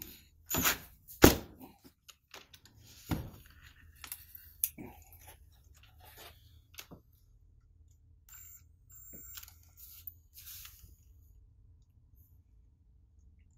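Scattered knocks and clicks of a cordless drill and a steel Allen wrench being handled and set against a wooden workbench, the loudest knock about a second in.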